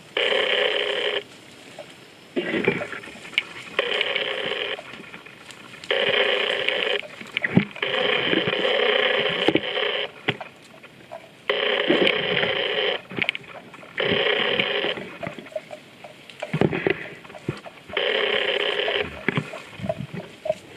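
A water buffalo's neck bell rattling in repeated bursts of about a second, every two seconds or so, as the grazing animal moves its head. Softer knocks come between the bursts.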